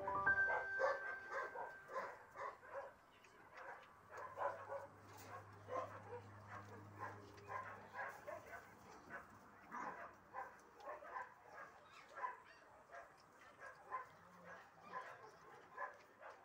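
Puppies giving short, faint yips and little barks over and over as they play-fight.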